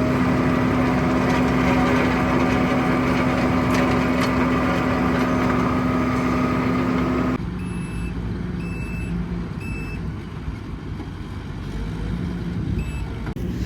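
A heavy machine's engine running steady with a strong hum. About seven seconds in it cuts to a quieter running engine, with a reversing alarm giving short high beeps about once a second.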